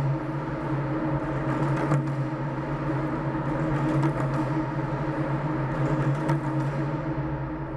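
A resonant drone from a sound installation of suspended large plastic water jugs: a steady low hum made of several held tones over a soft hiss, with a few faint clicks. The upper part thins out near the end.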